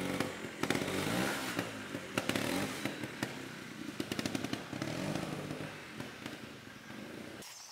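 Two-stroke Sherco ST 300 trial motorcycle engine revving up and down in quick throttle blips, with sharp clicks and knocks in between, growing fainter near the end.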